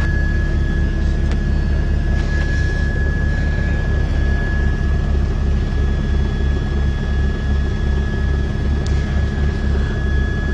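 News helicopter's rotor and turbine engine running in flight, heard through the on-board microphone: a steady, pulsing low rotor throb with a constant high whine over it.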